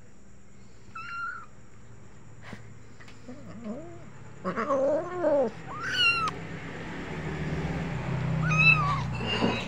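A cat meowing over and over: a short high meow about a second in, a run of lower, drawn-out meows around the middle, which are the loudest, then higher meows later. A low rumble builds underneath in the last few seconds.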